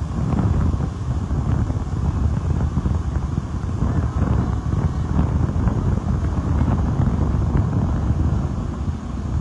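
Wind buffeting the microphone over the rush of churning water from a fast-moving river passenger launch's wake, with a steady low rumble underneath.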